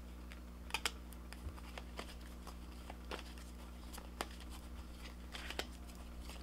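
A deck of oracle cards being shuffled by hand: soft rustling and scattered sharp card clicks, a few louder ones, over a faint low steady hum.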